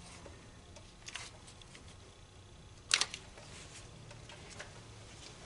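A sharp click about three seconds in, with faint handling clicks around it, as the wiring harness connector is worked off the shift solenoid of the 4R75W transmission.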